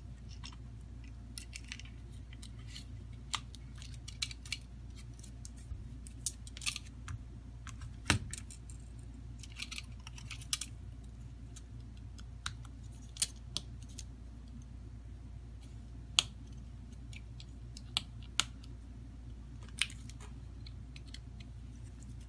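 Scattered small clicks and taps of plastic and metal smartphone parts being handled, the phone's frame and flex-cable connectors pressed and moved on a silicone mat, over a steady low hum. One knock about eight seconds in is louder than the rest.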